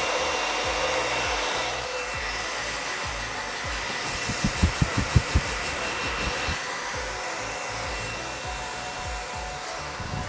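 Handheld hair dryer running steadily, a rush of air with a steady high whine, blowing hot air over a plastic bag covering the head. A run of low thumps comes about halfway through.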